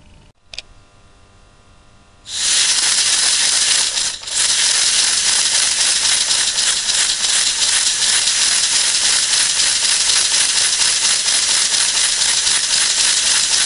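Scale model Waller horizontal engine running on compressed air. The air comes on suddenly with a loud hiss about two seconds in, falters briefly about four seconds in, and then the engine runs fast with a steady hiss of exhausting air.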